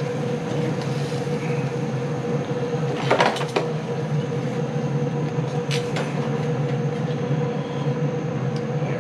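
Steady mechanical hum with a constant tone, broken by a few short clinks and knocks about three seconds in and again near six seconds.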